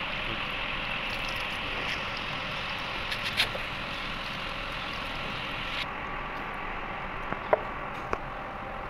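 Steady machinery noise, a hum and hiss with a few faint steady tones, its hiss dropping a little about six seconds in. A few sharp clicks stand out over it, the loudest about three and a half and seven and a half seconds in.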